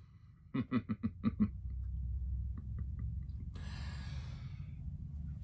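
A man's quick run of short, voiced gasping breaths, then a long breathy exhale about three and a half seconds in, over a low rumble. It is a startled reaction to feeling something brush his ear, which he took for a spider.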